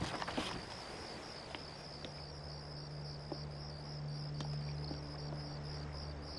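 Crickets chirping in a steady, evenly pulsing high trill, over a low steady hum and a few faint clicks.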